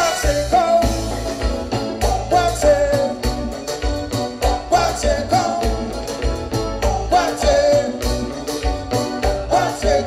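Live konpa band playing: a male lead singer over electric bass, keyboards and drums, with a steady driving beat.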